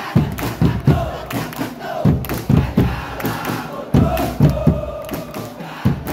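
Football supporters in a packed stand chanting in unison, with a drum beating about two to three times a second under the voices.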